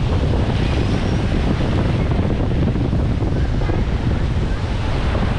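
Small waves breaking and washing up on a sandy beach, with wind buffeting the microphone in a steady low rumble.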